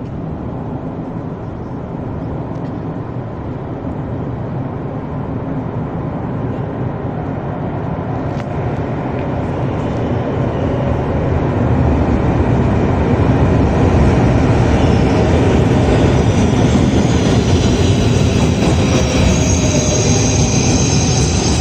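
Double-deck Trenord electric commuter train approaching through the tunnel and running into an underground station. A heavy rumble grows steadily louder over about fourteen seconds, and a high metallic squeal joins in for the last few seconds.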